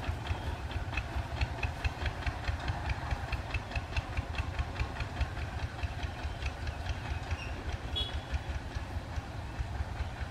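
Kubota ZT120 two-wheel tractor's single-cylinder diesel engine chugging steadily as it pulls a trailer loaded with rice sacks, with a regular light clatter over the fast low beat.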